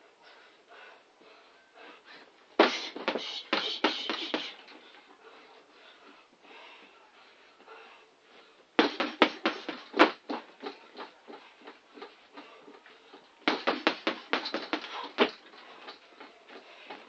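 Boxing gloves striking an Everlast punch bag in three quick flurries of rapid punches, several blows a second, with pauses between.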